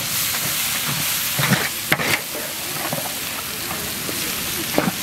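Onions and ground spices frying in hot coconut oil, sizzling steadily, with a few short scrapes of the stirring spoon in the pan.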